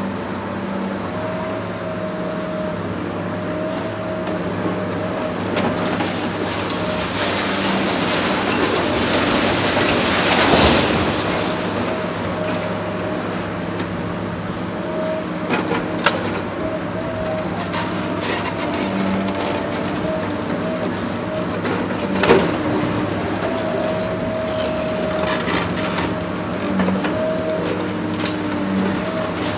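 Heavy demolition excavator's diesel engine running steadily. A rush of noise swells and fades about ten seconds in, and there are sharp knocks at about sixteen and twenty-two seconds.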